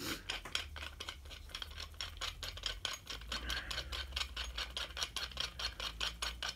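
Rough threads of a cheap valve spring compressor clicking and grating as its threaded shaft is wound in by hand: a fast, even run of faint ticks, about seven a second. The roughness is a sign of poorly cut threads.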